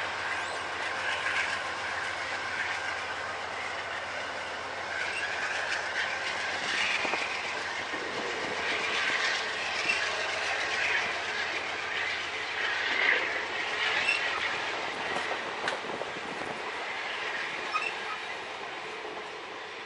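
Amtrak passenger train cars rolling past as the train departs, the wheels clacking over rail joints with high-pitched squealing from the wheels on and off. The sound fades slightly near the end as the train moves away.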